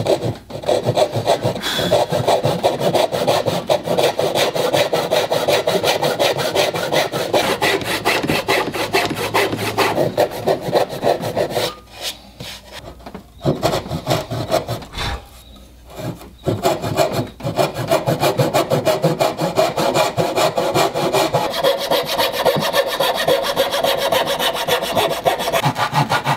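Carcass saw (a fine-toothed backsaw) cutting dovetails in a softwood 2x6, with quick, steady back-and-forth strokes. The sawing stops briefly twice around the middle and then runs on.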